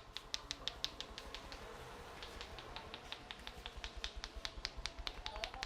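Rapid, even clicking, about six clicks a second, from a barber's hands tapping in rhythm during an Indian head massage.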